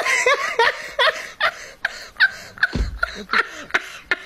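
A woman laughing hard: a run of short pitched laughing bursts, about two to three a second.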